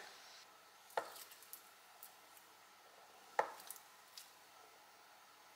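Kitchen knife cutting a block of soft chickpea tofu into cubes and knocking down on a wooden cutting board: two clear knocks about two and a half seconds apart, with a few faint taps between.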